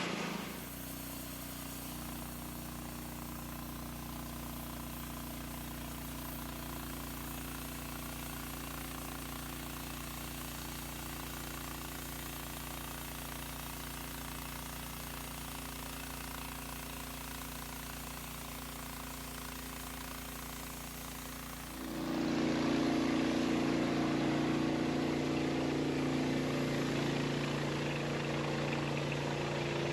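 A portable sawmill's engine running steadily; about two-thirds of the way through it suddenly gets louder and its note changes, as when the blade goes into the log.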